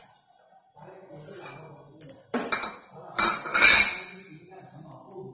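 Kitchen utensils clattering and clinking against a dish in two bursts, a little after two seconds and again from about three seconds in, the second louder and ringing.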